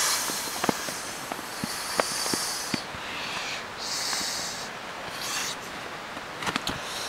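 A person blowing breaths by mouth into the valve of an inflatable camping pillow: several airy puffs, each up to about a second long. A few small clicks follow near the end.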